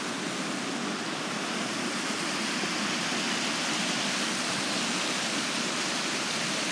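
Brook water rushing steadily, a fast-flowing stream swollen in early spring.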